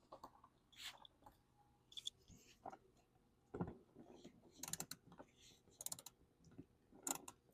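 Faint, irregular clicks and light taps from small parts being handled, a few sharper clicks about five and seven seconds in.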